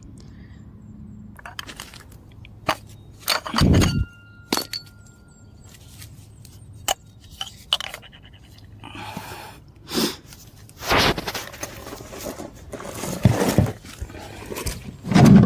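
Irregular clinks, knocks and scrapes of tools and an oil drain pan being handled under a car while old engine oil drains, with a brief thin ringing tone about four seconds in.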